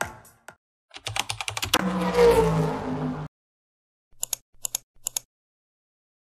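Intro-animation sound effects: a rapid run of clicks swelling into a whoosh, then four or five short, sharp mouse-click sounds near the end.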